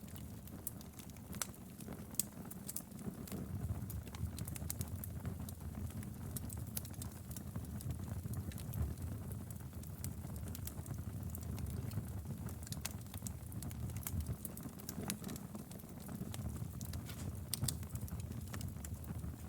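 Wood fire burning in a fireplace: irregular sharp crackles and pops from the burning firewood over a low, steady rumble of the flames.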